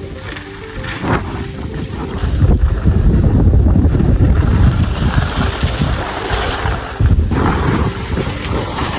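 Wind buffeting a phone microphone, a loud rushing rumble while skiing downhill in a blizzard. It swells sharply about two and a half seconds in and dips briefly near the seventh second.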